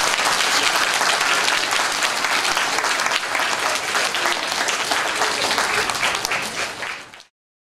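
A hall full of schoolchildren and teachers applauding, a dense steady clapping. It stops abruptly near the end, followed by a moment of complete silence.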